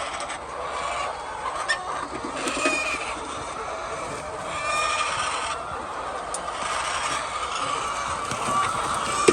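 A flock of chickens clucking, with short calls standing out now and then over a steady background of birds.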